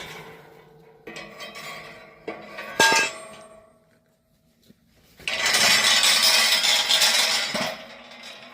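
Metal clanks with a short ring after each, a few over the first three seconds, typical of a metal farm gate or hurdle being handled. About five seconds in, a loud rough noise lasts a couple of seconds.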